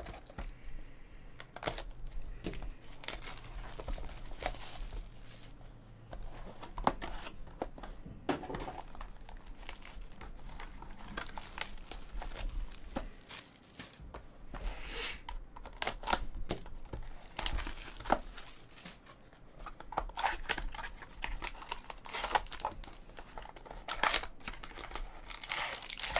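Cardboard trading-card box packaging being torn open and handled, then foil-wrapped card packs crinkling as they are slid out of their cardboard sleeve, in irregular bursts of rustling and sharp ticks.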